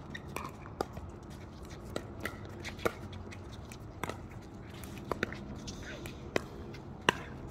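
Pickleball paddles hitting a plastic ball in a fast doubles rally: a string of sharp pops, about ten, spaced irregularly less than a second apart.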